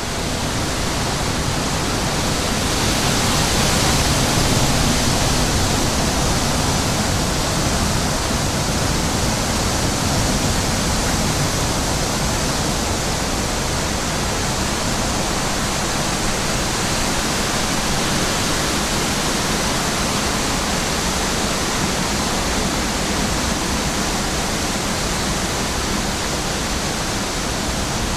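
Wind blowing over the microphone: a steady rushing noise that swells a little about three to five seconds in.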